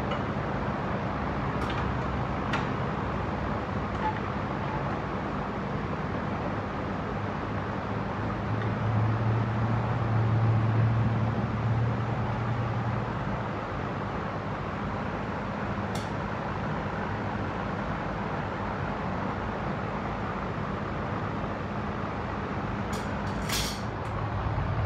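Steady low machine hum, swelling louder for a few seconds in the middle, with a few light clicks over it.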